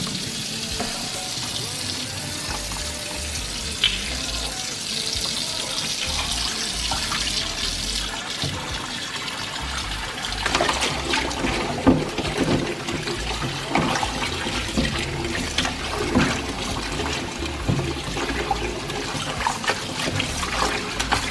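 Tap water running into a kitchen sink as a piece of raw pork is washed; from about ten seconds in, irregular splashing and wet slapping as the meat is rubbed and turned under the water.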